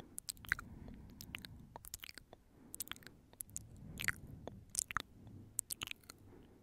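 Close-miked ASMR mouth sounds: an irregular run of short wet clicks and smacks, with soft breath noise between them.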